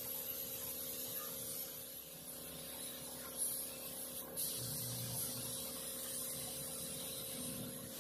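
Gravity-feed paint spray gun hissing steadily as it sprays, over a steady low hum, the hiss breaking off for a moment about four seconds in.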